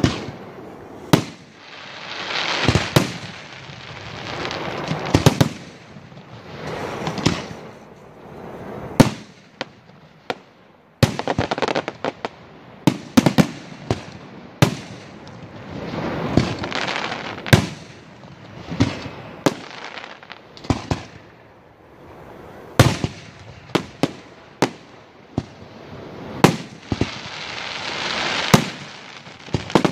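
Aerial fireworks shells bursting in a display: sharp bangs about once a second, some in quick clusters, with rushing noise swelling between them.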